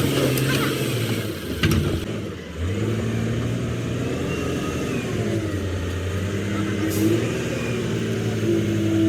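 An engine running steadily, its sound dipping and cutting out for a moment about two seconds in before picking up again, with a sharp knock just before the dip and a short click about seven seconds in.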